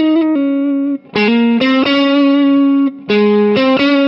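Electric guitar played through a NUX MG-100 multi-effects processor on its '2D Crunch SL' crunch preset, picking a slow single-note lead line of sustained notes, some bent upward, with a short break about a second in.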